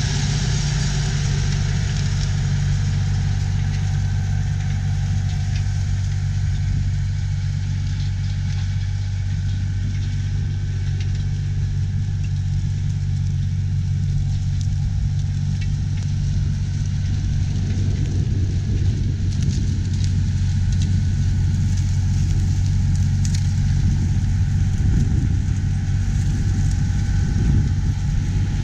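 Allis-Chalmers 4W-305 tractor's six-cylinder diesel engine running steadily under load, pulling a disk ripper through the soil, with a low steady hum that grows a little louder near the end.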